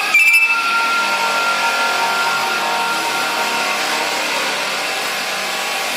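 Electric polishing tool running steadily against a Honda Megapro engine block and cylinder head, with a steady whine that is briefly louder right at the start.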